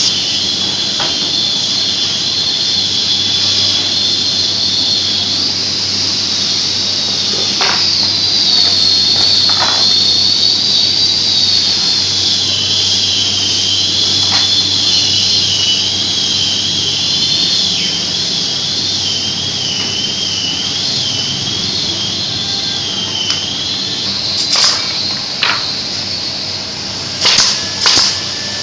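A steady high hiss of compressed air with a wavering whistle in it, with a few light knocks of boards being handled. Near the end the hiss stops and a pneumatic brad nailer fires sharply several times into the plywood.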